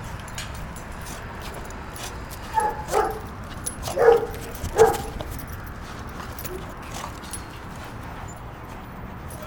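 Puppies barking during rough play: four short barks in quick succession a few seconds in.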